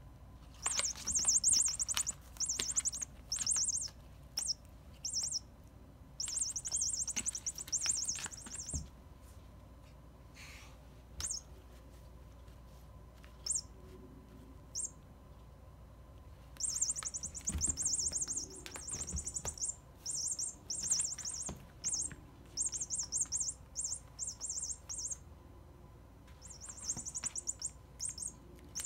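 Sound chip in a squirrel cat toy playing rapid, high-pitched chirping trills in repeated bursts of up to a couple of seconds, set off again and again as a cat bats and bites it. Soft knocks and rustles come from the toy and its cardboard card being handled.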